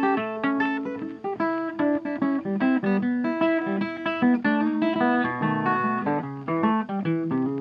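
Background music: an acoustic guitar playing a quick run of plucked notes.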